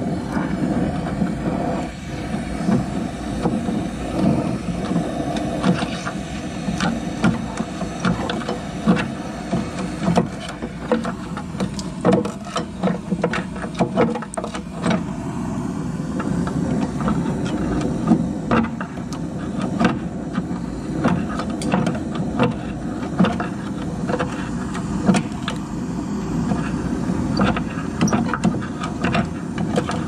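Handheld gas torch flame burning steadily against rusted, seized tailgate latch linkage to heat the pins free, with many sharp ticks and crackles scattered throughout.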